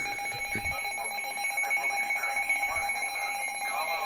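Emergency alert attention tone sounding steadily, a sustained electronic alarm tone that announces an incoming weather warning.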